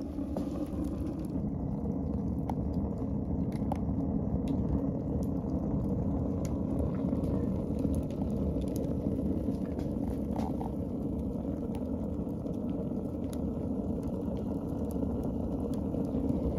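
Wood-fired rocket heater burning hard: the fire drawing through the feed tube makes a steady low rush, with scattered faint crackles from the burning sticks.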